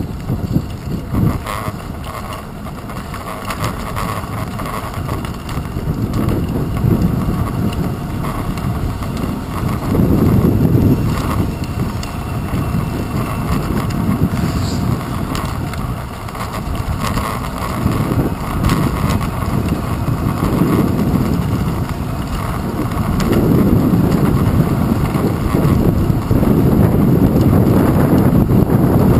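Wind buffeting a bicycle's handlebar-mounted GoPro while riding, mixed with the rumble of the tyres on wet pavement; the low rushing swells and eases every few seconds.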